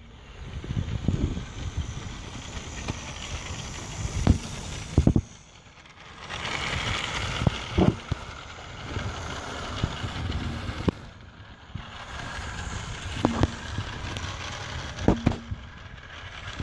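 Wind buffeting the microphone in a low, uneven rumble, with several sharp clicks scattered through it.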